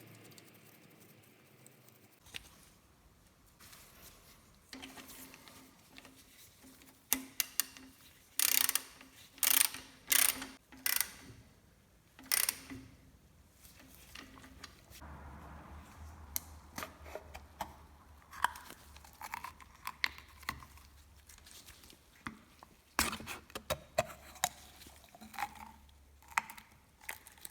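Hand tools clicking and clinking on metal as the gearbox drain plug is refitted and tightened. The sharp clicks come in a loud cluster about a third of the way in and again near the end.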